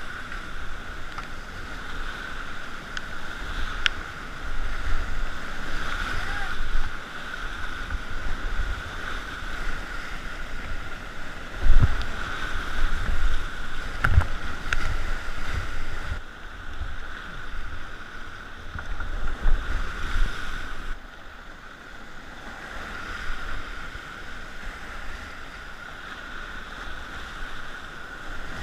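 Whitewater rapids rushing steadily while a kayak runs the river, with low rumbling buffeting on the microphone and a few sharp thumps, the loudest about twelve seconds in.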